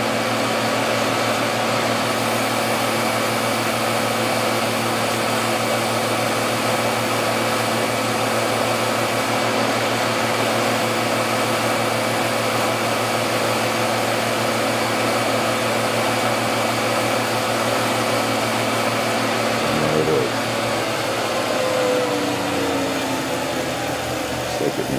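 Wood lathe running at high speed with a steady motor hum and whine, as a cloth is held against the spinning goblet to burnish a shellac-wax friction finish. The whine falls in pitch near the end.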